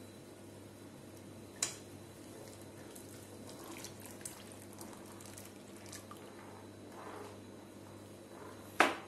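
Custard mixture poured into hot milk in a pan and stirred with a steel spoon: faint liquid sounds over a steady low hum. A sharp clink about one and a half seconds in and a louder clink near the end, the spoon striking the pan.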